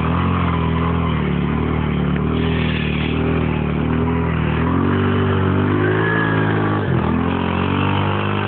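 ATV engine running steadily, its pitch rising and falling with the throttle about halfway through.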